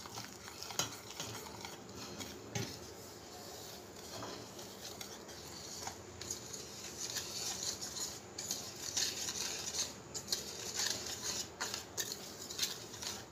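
A spoon stirring and scraping against the bowl, mixing cocoa powder, sugar and cornflour into a thick paste as milk is worked in to keep lumps from forming. There are continual scrapes and small clinks, busier in the second half.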